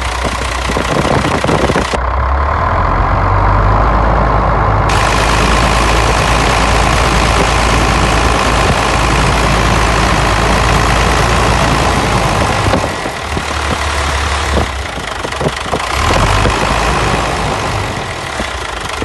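Hino 500 dump truck's diesel engine idling steadily, heard close up at the open oil filler.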